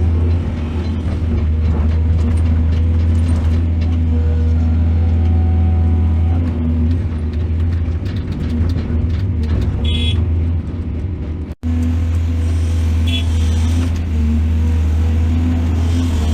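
Excavator's diesel engine running steadily under work, a deep continuous drone. Two short high squeals come in the second half, and the sound drops out for an instant a little past the middle.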